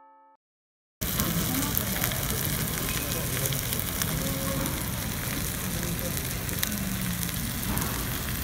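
Dolsot bibimbap sizzling in its hot stone bowl, a steady hiss with scattered fine crackles, starting about a second in. Just before it, the last fading note of a chime cuts off.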